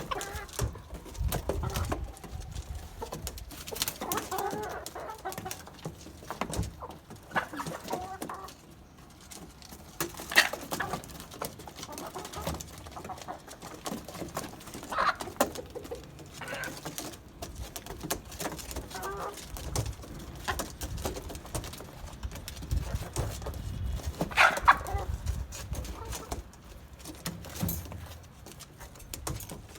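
Domestic hens clucking and calling on and off, with a few louder calls standing out.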